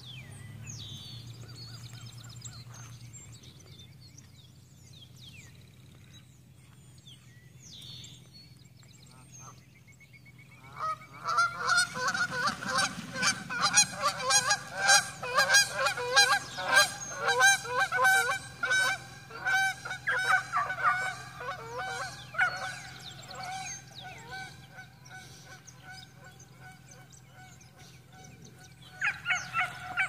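Canada geese honking in flight. About a third of the way in, a rapid, loud chorus of honks starts, goes on for over ten seconds, then thins to scattered calls. A short burst of honks comes near the end.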